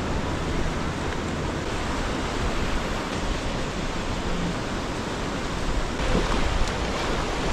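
Steady rush of ocean surf and wind on a beach, growing louder about six seconds in.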